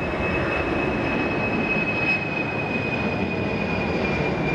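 Boeing 747-400 freighter's four jet engines at takeoff power during climb-out: a steady roar with a high whine that falls slowly in pitch as the jet passes.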